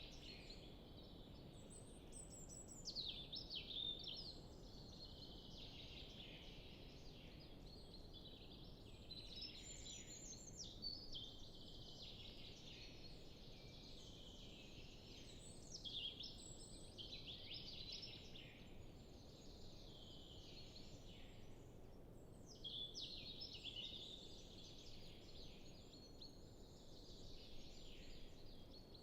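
Faint chorus of several songbirds singing in a forest, overlapping fast warbling phrases that continue throughout, with a louder phrase every six or seven seconds over a soft background hiss.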